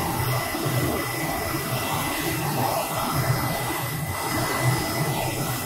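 Focus Alpha Max 6250 UV flatbed printer standing by with its fans and blower running: a steady whir with a thin, steady high whine.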